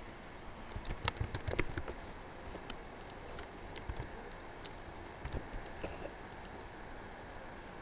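Computer keyboard typing: a quick run of keystrokes about a second in, then a few scattered single key clicks, over a steady low hiss.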